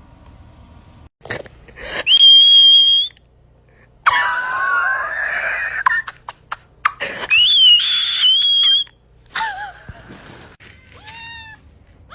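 A run of loud animal cries. There is a high, held squeal, then a wavering call, then a second high squeal, and near the end a short falling call like a meow.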